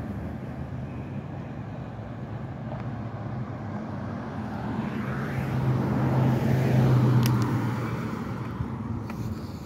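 Pickup truck driving past: its engine and tyre noise swell to a peak about seven seconds in and then fade, over steady traffic noise.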